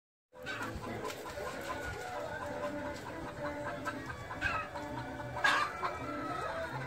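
Pheasants clucking and chattering, several short calls overlapping, with one louder, sharper call about five and a half seconds in.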